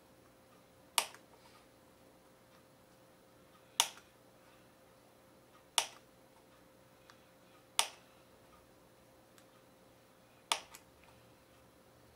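Hobby knife blade chopping through a thin styrene strip onto a board, one sharp click per cut. Five cuts come two to three seconds apart as short bracket pieces are cut off one by one.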